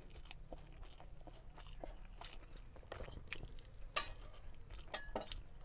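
A person chewing a mouthful of rice with fried fish and dal close to the microphone: wet smacking and clicking mouth sounds, with a few sharper smacks about four and five seconds in.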